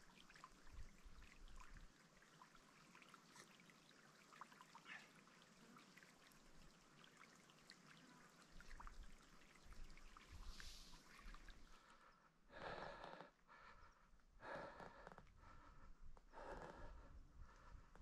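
Near silence: faint outdoor room tone with light crackles, then a few soft, short puffs of air in the second half.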